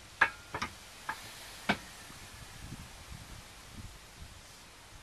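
Sharp metal clicks and knocks from a 22 mm Ultra Racing rear sway bar being worked by hand against the car's rear suspension arm. There are four or five clicks in the first two seconds, the first the loudest, then only faint handling noise.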